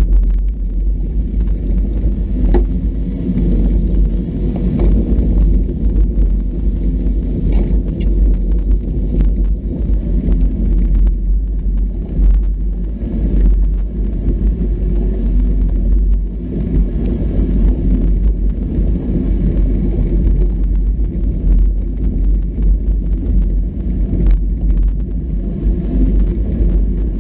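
Off-road vehicle driving a rough trail: a steady low engine and ride rumble with occasional sharp knocks.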